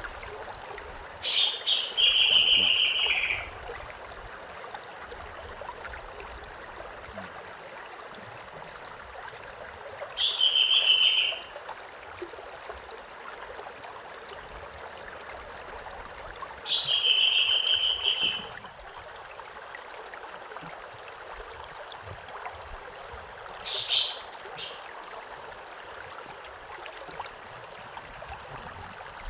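A stream or small river flowing steadily. Over it a bird calls: a held, slightly wavering note of a second or two, three times about seven seconds apart, then two short sharp notes.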